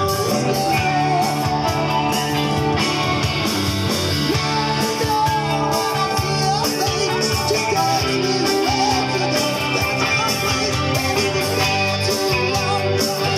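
Live rock band playing: electric guitar through an amplifier over drums with a steady beat.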